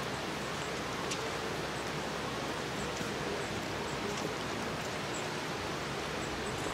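Steady outdoor background hiss, with a few faint small clicks.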